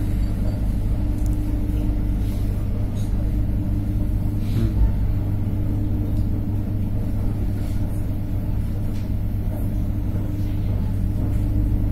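ER9M electric multiple unit running, heard from inside the carriage: a steady low rumble of the train in motion with a constant hum over it, and a single knock about halfway through.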